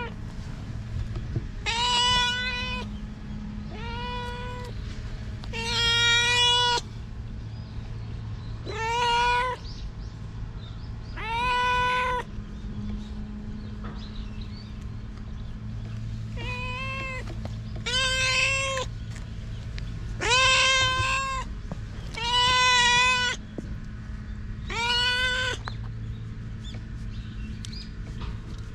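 Tortoiseshell cat meowing loudly and repeatedly: about ten long meows, spaced a couple of seconds apart, some drawn out. A steady low hum runs underneath.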